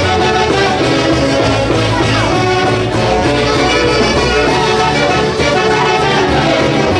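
Peruvian folk orchestra playing a Santiago festival tune, its wind section leading the melody over a steady bass.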